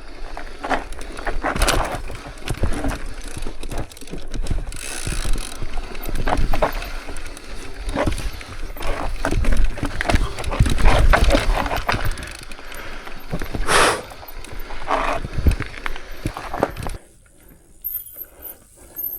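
Mountain bike rattling and clattering over rough rocky trail: irregular knocks and clicks from the bike over a low rumble of wind on the microphone. It goes much quieter near the end.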